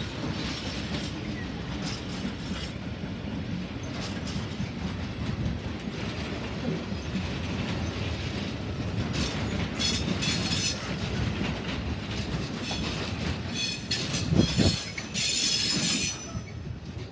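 Empty flat and stake wagons of a freight train rolling past: a steady rumble of steel wheels on rail with clatter over the rail joints. There are spells of high wheel squeal around the middle and again near the end, with the loudest moment shortly before the sound drops away as the last wagon passes.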